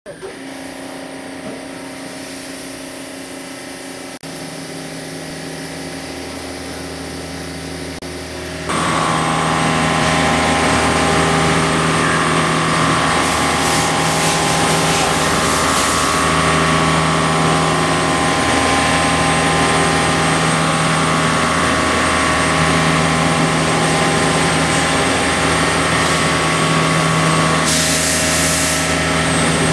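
CNC machining centre spindle driving an indexable helix drill through S50C steel by helical interpolation, with through-tool coolant. It runs with a steady hum at first, then about nine seconds in the cut takes hold and it becomes much louder: a steady, many-toned cutting whine over a wash of coolant noise, with a low hum that swells and fades every few seconds and a few brief bursts of hiss.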